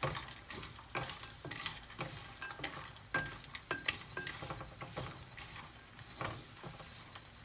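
Almond slivers, cashews and raisins frying in a little ghee in a nonstick pan while a wooden spatula stirs them: irregular scraping and clicking of the nuts against the pan over a faint sizzle.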